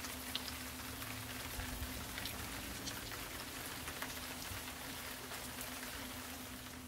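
Electric pottery wheel spinning with a steady hum while wet hands shape clay on it, the water and slip on the clay making a continuous wet hiss with many small ticks.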